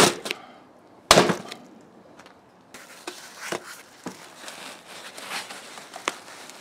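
Two sharp knife stabs striking a cheap stab-proof vest panel with metal plates inside, one at the start and one about a second in; the blade does not go through. Then rustling and small clicks as the panel's fabric cover is handled and pulled open.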